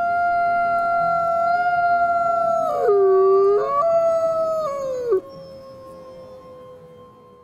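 Wolf howling: one long, steady howl that drops sharply in pitch about three seconds in, climbs back, then falls and breaks off about five seconds in. A fainter, lower howl trails away after it.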